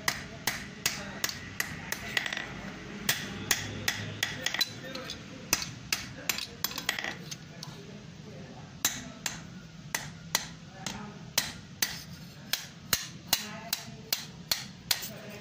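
Blacksmith's hand hammer striking an iron hoe head held in tongs on an anvil while forging it: a run of sharp metal-on-metal blows, about two to three a second, with a break of about a second and a half midway.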